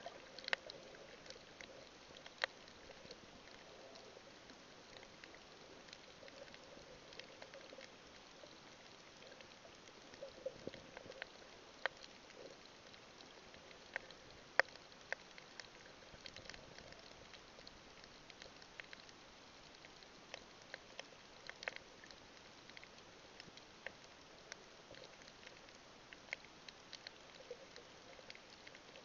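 Faint underwater crackle: scattered sharp clicks at irregular intervals over a low hiss, recorded by a camera under water above a coral reef.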